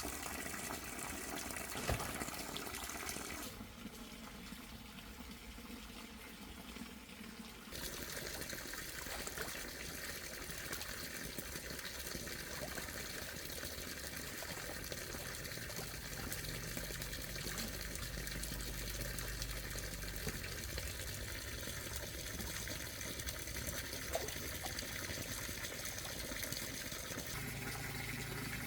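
Water running steadily in a continuous gushing rush, with a quieter stretch a few seconds in.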